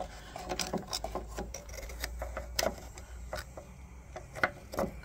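Scattered light clicks and taps of an air blow gun and brake line fittings being handled, over a steady low hum.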